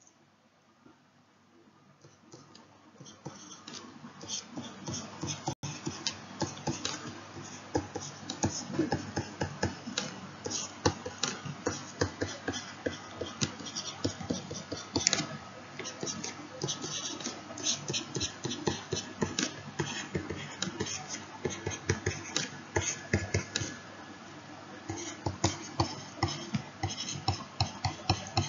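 Stylus tapping and scratching on a tablet screen in quick, irregular strokes as numbers and a formula are handwritten, starting about two seconds in.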